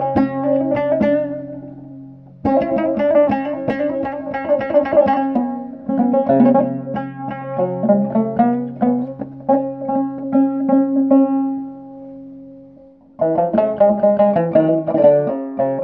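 A loutar, the Amazigh long-necked lute, played solo: quick plucked melodic runs over a held low note. The playing fades away about two seconds in and again near twelve seconds, each time starting again abruptly.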